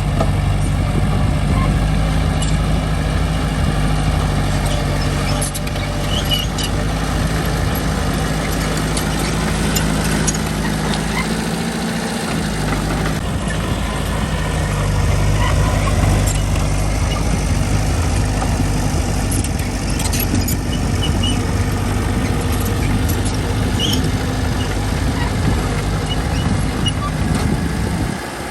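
Diesel engine of a small Mitsubishi bulldozer running steadily, its low note dropping briefly about twelve seconds in, with scattered faint clinks over it.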